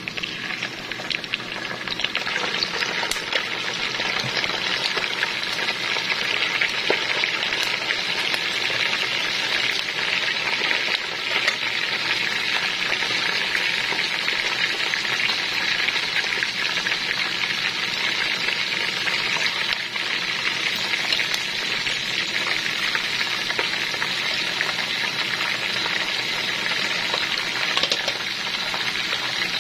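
Pandan-leaf-wrapped chicken pieces deep-frying in hot oil in a steel pot, giving a steady, dense sizzle full of fine crackles.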